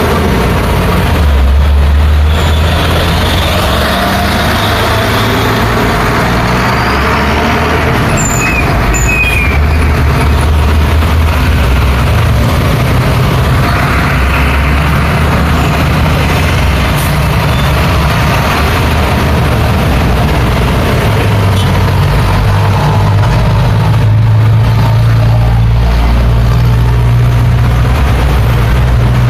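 Busy road traffic: heavy vehicles such as trucks and buses and cars passing close by, engines swelling and fading one after another over steady tyre noise.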